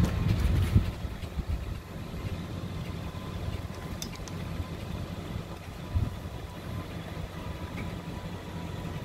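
Low, uneven rumble with a faint steady hum above it, a thump about a second in and a few light clicks.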